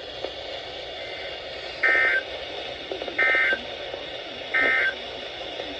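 NOAA Weather Radio SAME data bursts over a weather radio's speaker: three short buzzy bursts, each under half a second, about a second apart, over steady radio hiss. This is the end-of-message code that closes the previous warning broadcast.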